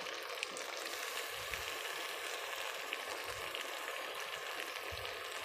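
Frozen block of saluyot (jute leaves) frying in hot oil with browning garlic and coriander: a steady sizzle with small crackles.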